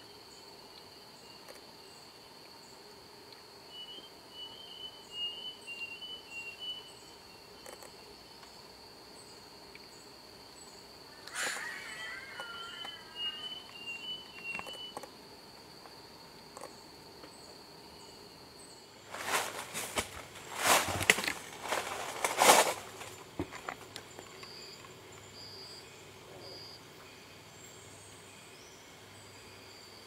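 Forest ambience: a steady, high insect drone with several runs of short, high chirping bird notes. About two-thirds of the way through the drone stops, and several loud, harsh noisy bursts follow over a few seconds.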